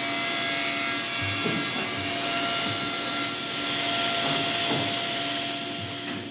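Table saw running with its blade cutting through a wooden sheet as it is fed along the fence: a steady motor tone under a rushing cutting noise that eases slightly near the end.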